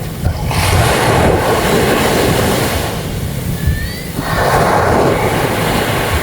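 Sea waves washing onto a beach, swelling twice, with wind buffeting the microphone.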